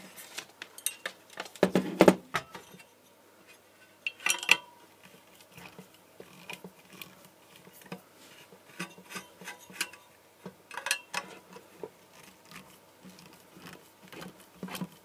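Metal handling noise from the aluminium heatsink and lens assembly of an LED high bay light being turned over on a bench: clattering knocks, the loudest about two seconds in, among scattered lighter clicks and scrapes. Near the end, a screwdriver ticks against the screws of the lens ring.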